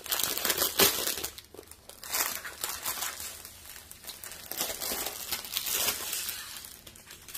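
Clear plastic packaging crinkling in irregular bursts as hands handle and open it. It is a bag holding strips of small packets of diamond-painting drills.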